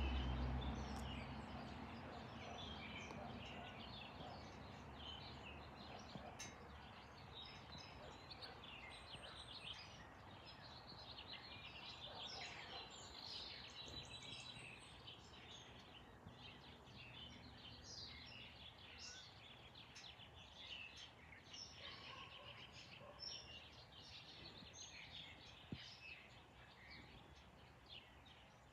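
Birds chirping on and off, with a low rumble near the start that fades over the first couple of seconds.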